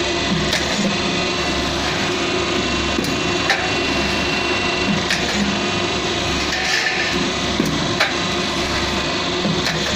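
Metal stud roll forming machine running steadily as formed steel channel feeds through it, with scattered sharp metallic clicks and knocks.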